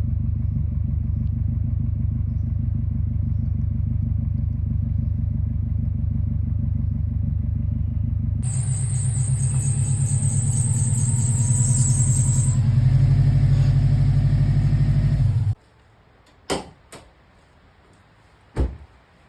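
Turbocharged Subaru WRX flat-four engine running. About a third of the way in it changes abruptly to a louder run with a high steady whine over it, and the engine grows louder before cutting off suddenly. A few sharp knocks follow.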